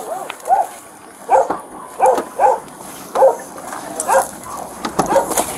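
Captured feral dogs barking from the animal control truck's dog boxes: about eight short barks at uneven intervals of half a second to a second.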